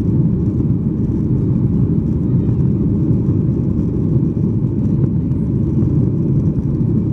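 Loud, steady cabin rumble of a Boeing 737-800 climbing out just after liftoff, its CFM56-7B engines at high thrust, heard from inside the cabin.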